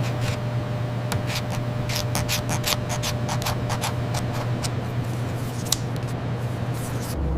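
A steady low hum with many irregular sharp clicks and taps over it, which cuts off near the end.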